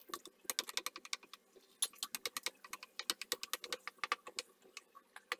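Hot ghee crackling and popping as raisins fry with cashews in a nonstick pan: a rapid, irregular run of sharp little pops.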